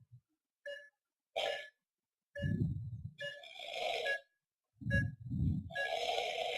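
A sedated patient's obstructed breathing at the end of an apneic episode with soft-palate collapse: low, rough snore-like breaths, one about two and a half seconds in and another about five seconds in, with airy hissing breaths between them. Over this, a patient monitor beeps a short two-tone pulse beep about once a second.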